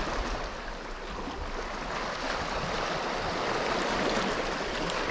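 Sea water washing and swirling over shoreline rocks, a steady rushing that swells and eases gently.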